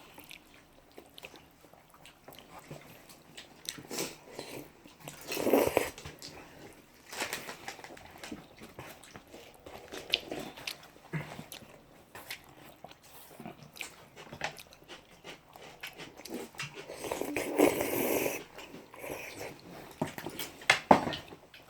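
Close eating sounds of jajangmyeon noodles: chewing and biting with many small clicks, and two longer, louder sounds about five and seventeen seconds in.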